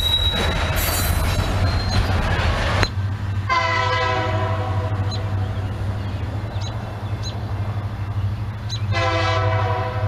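Freight cars rolling past with steady wheel-on-rail noise for about three seconds. Then a distant diesel locomotive's air horn sounds one blast of about a second and a half, and a second blast begins near the end, over a low steady hum.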